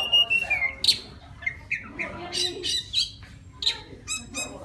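Oriental magpie-robin singing: a quick run of varied notes, a falling whistled glide near the start, then short sharp notes mixed with harsher rasping ones. This is the male's song for calling a female.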